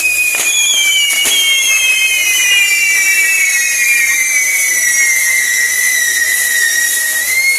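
Whistling fireworks: several shrill whistles at once, slowly falling in pitch, with a couple of sharp cracks in the first second or so.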